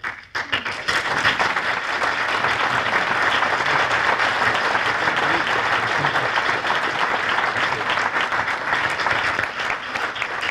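An audience applauding steadily. The clapping starts about half a second in and thins out near the end.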